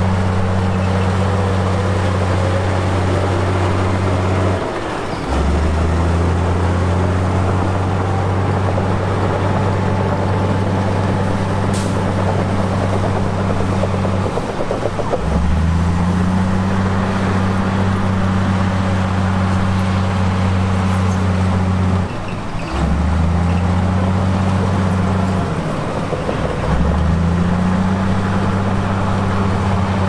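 Heavy diesel engine of earthmoving machinery running under load with a steady low drone. The drone dips briefly four times and each time comes back with a short rise in pitch.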